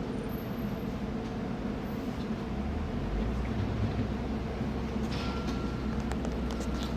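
MAX light rail train at the platform: a steady hum with a low rumble building about two and a half seconds in, then a steady high tone with hissing and clicking near the end.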